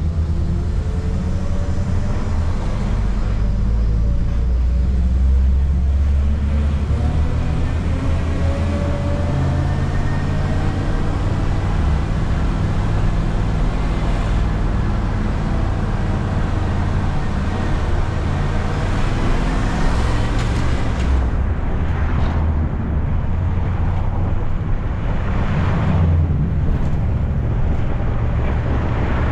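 Micro (Bolivian public-transport bus) engine running while driving, its pitch rising and falling with the revs, with road traffic noise. A few louder bursts of noise come near the end.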